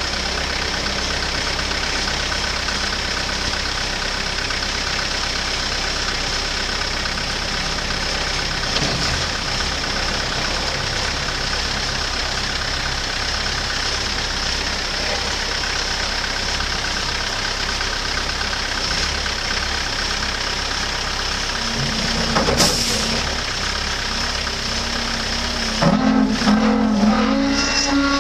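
Truck-mounted rough-terrain forklift's engine running steadily as the forklift is taken off the back of a flatbed trailer. A pitched tone sounds briefly over the engine about three quarters of the way through, and again for about two seconds near the end.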